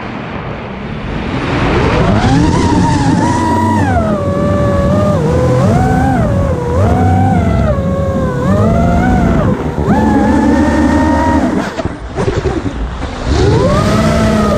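Motors and propellers of an iFlight DC5 5-inch FPV quadcopter whining, the pitch rising and falling again and again with the throttle. Near the end the whine drops away and breaks up for about a second and a half, then climbs back up.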